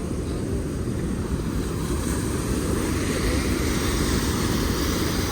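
Niagara Falls: the steady roar of the falling water, with wind buffeting the microphone.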